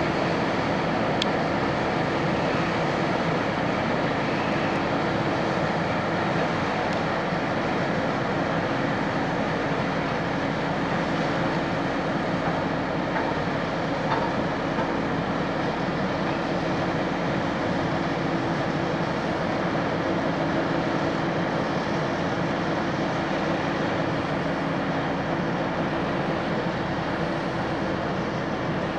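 Cargo ship's diesel engine running steadily, a constant mechanical drone with a low hum.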